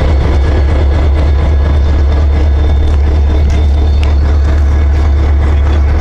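EMD SD40-2 diesel-electric locomotive's 16-cylinder two-stroke diesel engine running steadily, a loud, unbroken low drone heard from right beside the hood.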